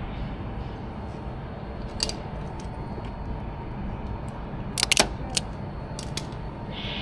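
Sharp clicks and taps of wire ends and a tool being worked into a control-panel terminal block: one about two seconds in, a louder cluster about five seconds in, then a few more. Under them runs a steady low rumble.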